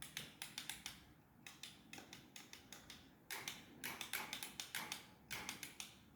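Electric winch's solenoid clicking rapidly, in runs of several clicks a second with short pauses, without the motor turning. The chattering fits the current dropping out, which the mechanics put down to a faulty cheap battery terminal.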